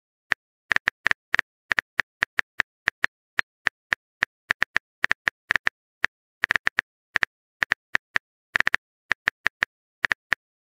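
Phone keyboard typing sound effect: a run of short, sharp taps at an uneven rate of about four a second, some in quick clusters.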